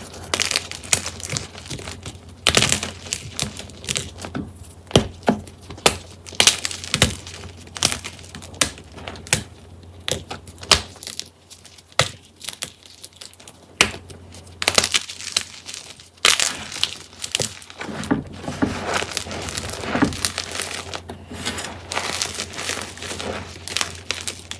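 Hard, re-dried Ader gym chalk being crushed close up: a run of irregular sharp crunches and crackles as the brick-hard chalk breaks apart, thinning out for a couple of seconds midway before picking up again.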